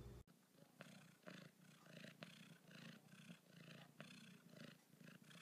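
Domestic cat purring close to the microphone, a faint, evenly pulsing purr.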